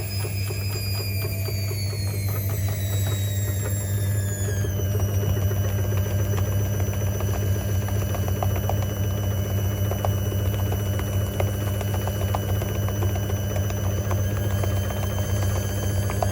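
Hoover H3W69TME washing machine running: a motor whine drops in pitch between about two and four seconds in, then holds steady over a steady low hum with light ticking.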